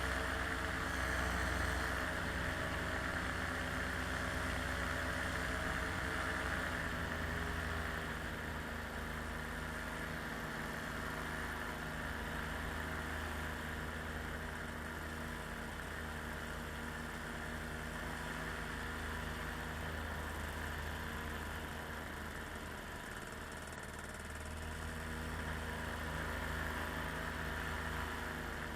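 A small aircraft's engine running steadily in flight, a continuous drone whose pitch and level settle slightly lower about seven seconds in.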